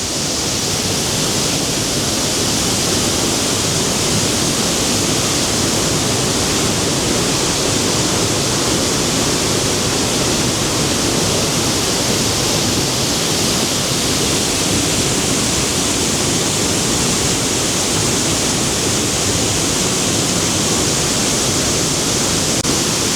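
A wide waterfall heard close at hand: a loud, steady rush of falling water that does not change.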